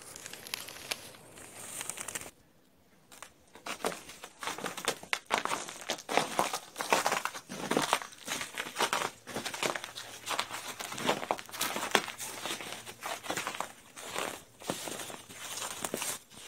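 Footsteps crunching in fresh snow at walking pace, a dense run of crisp crunches after a brief pause a few seconds in.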